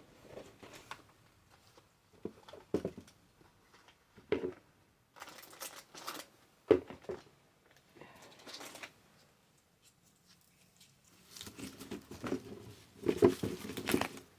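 Irregular rustling and crinkling of packaging with light knocks as small packaged items are handled and pushed into a basket, busiest in the last few seconds.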